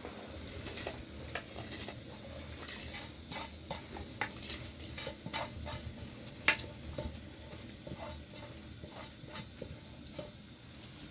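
Utensil stirring and scraping in a cooking pot, with irregular sharp clinks over a steady low hiss; the loudest clink comes about six and a half seconds in.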